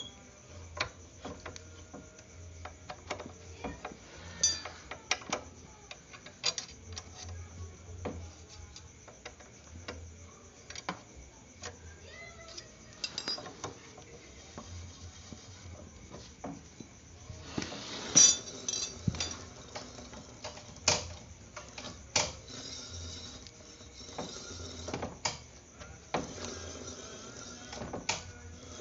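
Irregular metallic clinks, taps and knocks of hand tools working on a scooter's front disc brake caliper as it is refitted and its bolts tightened, with a busier cluster of clinks about two-thirds of the way through.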